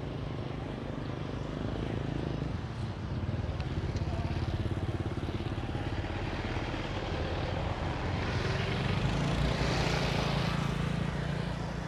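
Motorcycle engines running close by, with a steady low hum that grows louder from about eight seconds in.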